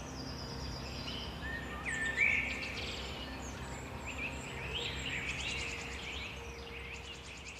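Several songbirds singing and calling in a forest, with many short chirps, trills and gliding whistles overlapping, the loudest a rising note about two seconds in, over a steady low background hum.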